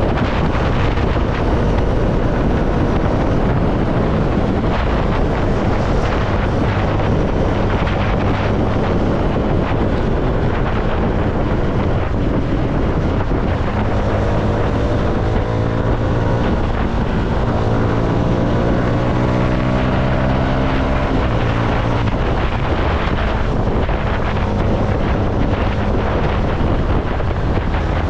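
CFMoto motorcycle engine running under way, with wind buffeting the microphone. About halfway through, the engine pitch climbs several times in a row as the bike accelerates through the gears.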